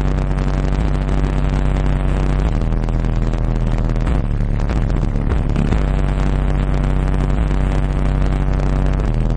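RE Audio XXX 15-inch subwoofer in a ported box tuned to 32 Hz, powered by an Orion 2500D amplifier, playing loud, steady deep bass notes. The notes change about two and a half seconds in and again near six seconds.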